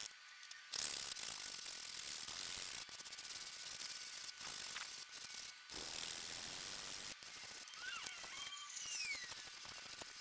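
Rapid ratcheting, rattling clicks of a small hand-worked mechanism, in runs broken by brief pauses, with a few faint squeaks about eight seconds in.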